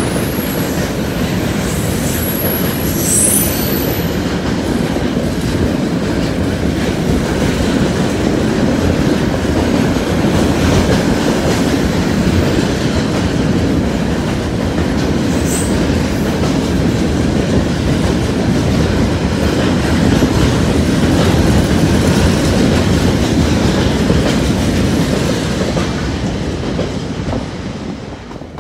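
Freight train of tank wagons rolling past: a steady, loud rumble of wheels on the rails, with brief high wheel squeals in the first few seconds, dying away near the end.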